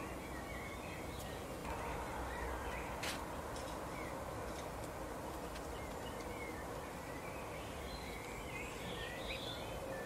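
Small songbirds chirping in short, high twitters over a steady outdoor hiss, with a few sharp clicks of seeds being cracked at a seed feeder, the loudest about three seconds in.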